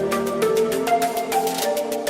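Background music: a soft electronic track with a steady beat and bright mallet-like notes.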